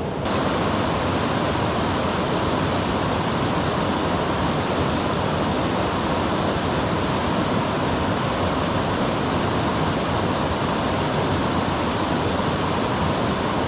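Waterfall on a mountain river rushing steadily, a constant even roar of falling water that cuts in abruptly right at the start.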